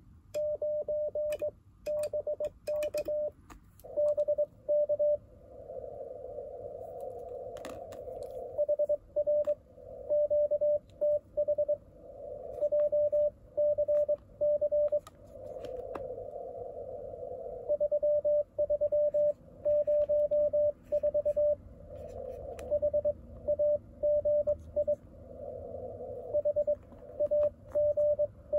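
Morse code (CW) received on an Icom IC-705 transceiver: a single steady tone of about 600 Hz keyed in dots and dashes, with filtered band noise hissing in the gaps between groups. The code is the other station's reply giving its location, 'HR QTH JCC 3304 HAGI HAGI CITY BT'.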